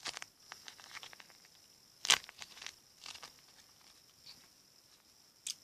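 Paper squishy being handled: short crinkling and rustling of the paper and tape, with a sharper crinkle about two seconds in.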